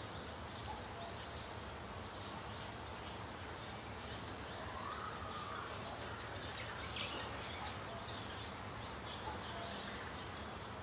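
Outdoor ambience of birds chirping over a steady background hiss. The short high chirps come repeatedly, more thickly in the second half, with one longer rising-and-falling call in the middle.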